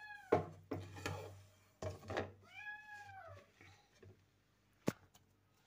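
A domestic cat meowing twice: a short call at the start and a longer meow about two and a half seconds in, each rising then falling in pitch. Between them come several sharp clicks and knocks, a metal spoon striking the steel pot as the dal is stirred.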